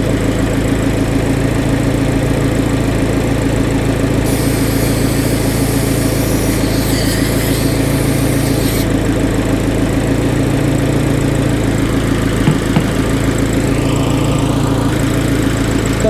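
Abarth's 1.4-litre turbocharged four-cylinder idling steadily with the air conditioning running. About four seconds in, gas hisses out of the AC charging-hose fitting for about four and a half seconds as it is loosened to purge trapped air from the hose, then cuts off sharply when the fitting is retightened.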